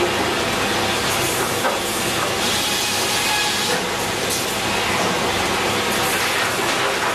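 Grey Series 2000 reversing-belt saw bench running: a steady, dense mechanical noise of the saw with its motors and feed, with a few brief louder swells.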